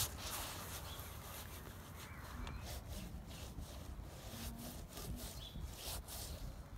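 Bare hand rubbing and smearing paint across a stretched canvas in repeated strokes, over a steady low rumble.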